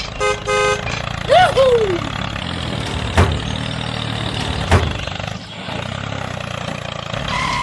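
A small motor runs steadily with a low hum. About a quarter second in come two short horn-like toots, then a couple of curved, falling tones, and two sharp clicks about one and a half seconds apart later on.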